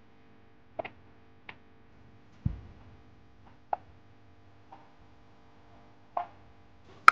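Six scattered short clicks over a faint steady hum. One of them, about two and a half seconds in, is a deeper thump, and the loudest.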